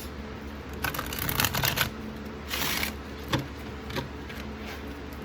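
Tarot cards being shuffled: a rapid run of card flicks for about a second, a short swish, then a couple of single sharp card clicks.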